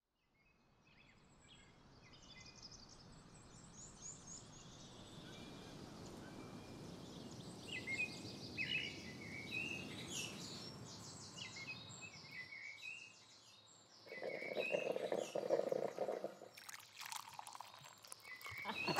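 Outdoor ambience of small birds chirping and singing over a soft wash of noise that slowly swells, the chirps busiest in the middle. About three-quarters of the way in, a lower pulsing call stands out for a couple of seconds.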